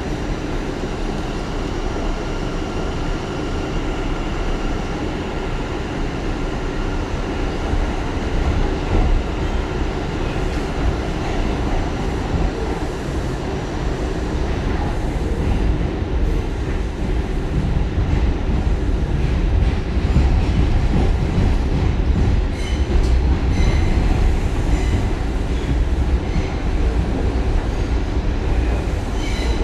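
R179 subway car running on the track: a steady rumble of wheels and rails, with a faint steady whine in the first several seconds that fades out. Through the second half the rumble grows a little louder, with short high squeals and clicks from the wheels.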